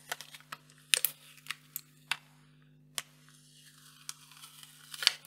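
Clear plastic film on the inside of a tablet keyboard cover being handled and lifted at its edge: scattered short crackles and clicks, more of them near the end, over a faint steady hum.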